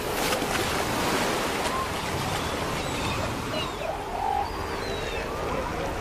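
Steady wash of surf from breaking ocean waves, with a few short, faint animal calls over it in the middle.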